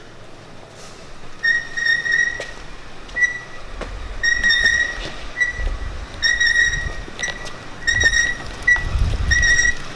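A hand-pushed Ford SVT Focus rolling on concrete: a high-pitched squeak from the wheels repeats roughly twice a second, alternating longer and shorter, from about a second and a half in, over a low rumble of the tyres.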